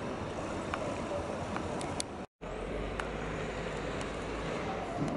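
Street ambience with steady traffic noise and a few light clicks. It cuts out for a moment a little over two seconds in, then a low rumble runs for about two seconds.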